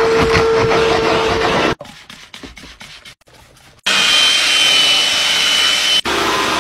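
A vacuum running with a steady hum, its crevice tool sucking debris off car carpet, until it cuts off nearly two seconds in. After a quiet stretch with light clicks, a cordless drill spins a scrub brush on a fabric car seat with a steady high whine, and about six seconds in an upholstery extractor takes over with its steady suction.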